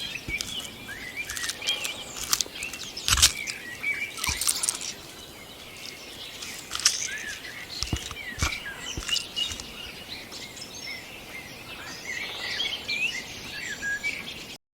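Many small birds chirping and calling outdoors, with a few sharp ticks among them over a light steady hiss. It all stops abruptly near the end.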